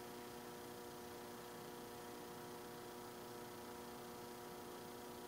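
Faint steady electrical hum, several even tones held over a light hiss.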